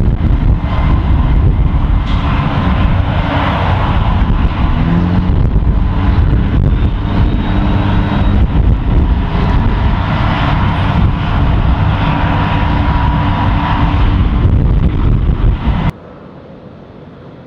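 Loud, steady roar of jet aircraft engines with a faint whine running through it, cutting off abruptly about sixteen seconds in.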